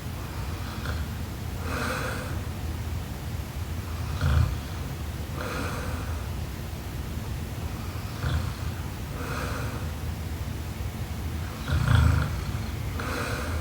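A young woman snoring in her sleep: a low, rough snore about every four seconds, three in all with the loudest near the end, and a softer breathy breath between each, over a steady low hum.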